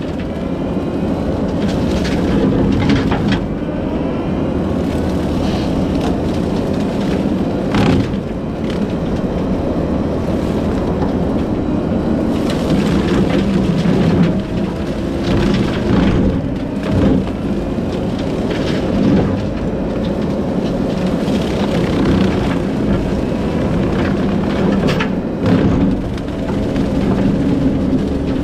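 Kubota SVL75-2 compact track loader's four-cylinder diesel running steadily under load while its Skidpro brush-cutter head mulches brush. Frequent sharp cracks and snaps of wood being shredded sound over the engine.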